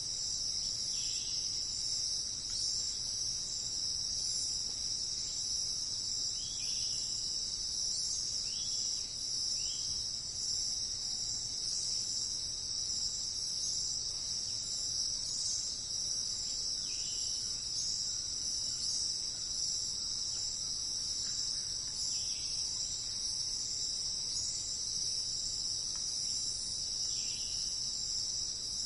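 A steady, high-pitched insect chorus, like crickets, trilling without a break. A few faint, short bird chirps are scattered through it.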